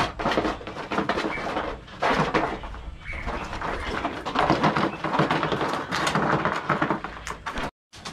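Hot umu stones clattering and scraping against each other as a long pole pushes and spreads the heated rock pile, in dense, irregular knocks. The sound cuts out briefly near the end.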